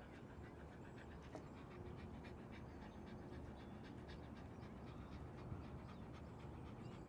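A husky panting quickly and faintly, close up, with a steady low rumble underneath.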